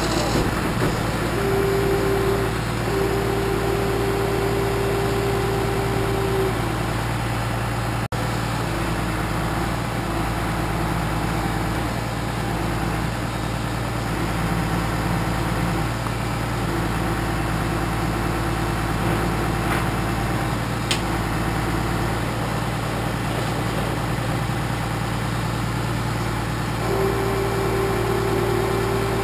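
Truck engine idling steadily. A steady higher whine runs over it from about a second in to about six seconds in, and comes back near the end.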